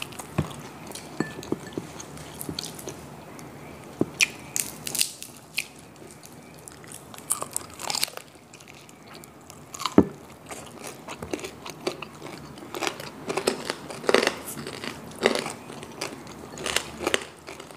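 Close-up crunching and chewing of crispy pata (deep-fried pork knuckle), its crackling skin giving many sharp, irregular crunches, with one louder snap about ten seconds in.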